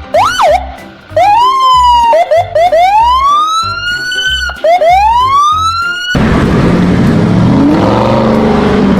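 Police siren wailing and yelping in rising and falling sweeps over a background music beat. About six seconds in it cuts off suddenly and gives way to a loud, steady rushing noise with a low hum.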